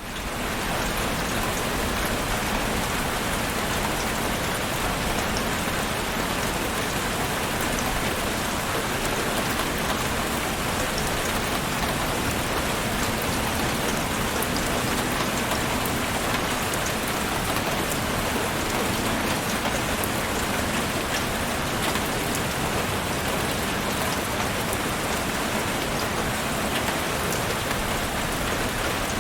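Heavy rain falling steadily: a dense, even hiss of rain with many small drop ticks. It fades in at the very start.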